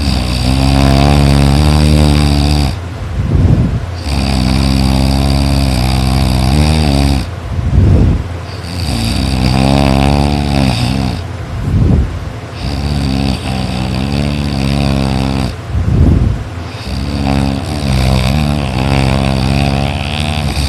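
A person snoring very loud in a slow, regular breathing rhythm. There are about five long, pitched snores roughly four seconds apart, each followed by a short, sharp breath.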